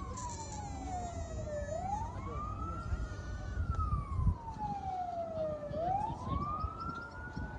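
A siren wailing, its single tone rising quickly and falling slowly in a steady cycle of about four seconds.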